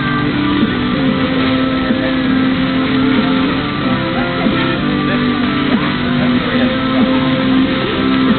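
Music playing, with held notes that change every second or so.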